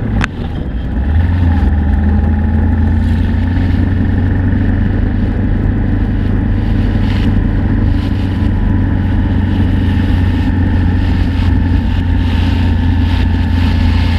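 Suzuki Inazuma GW250's parallel-twin engine running steadily while the motorcycle cruises along the street. The engine dips briefly about a quarter second in, then holds an even note with wind and road noise over it.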